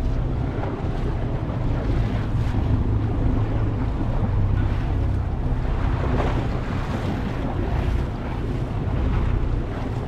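Motorboat under way: its engine runs with a steady low hum, over the rush of sea water and wind buffeting the microphone.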